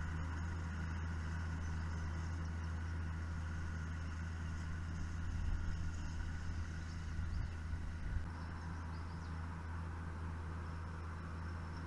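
Tractor engine running at a steady speed, with a few brief low bumps about halfway through.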